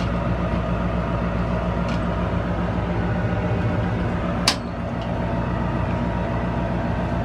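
A steady low mechanical hum throughout, with light clicks and one sharper click about four and a half seconds in as a plastic shower head is screwed onto the shower arm.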